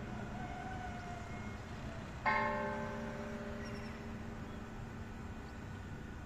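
Church bell of the Basilica of Esquipulas tolling slowly: a single strike about two seconds in that rings on and slowly fades, with the tail of the previous strike still dying away at the start.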